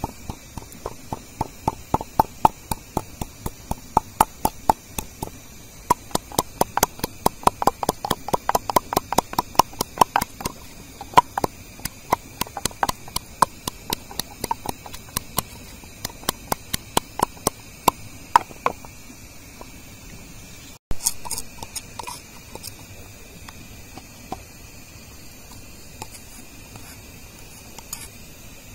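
Wooden pestle pounding garlic, shallots and chili in a wooden mortar: a steady run of hollow wooden knocks, about three a second, which stops about 19 seconds in, leaving only a few faint clicks.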